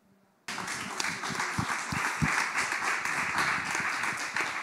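A small seated audience applauding, starting abruptly about half a second in after near silence.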